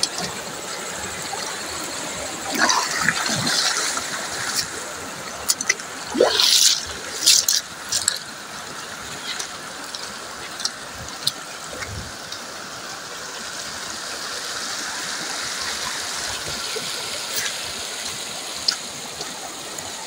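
Shallow mountain stream flowing over rocks, a steady rushing of water, with a few brief louder noises between about two and eight seconds in.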